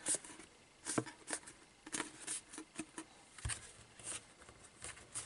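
Cardstock being handled, folded and pressed: scattered short crackles, rustles and light taps as glued flaps of a paper box lid are bent inward and pressed in place.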